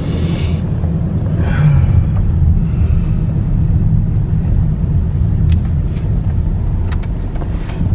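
Steady low rumble of a car driving, heard from inside the cabin, with a few light clicks in the second half.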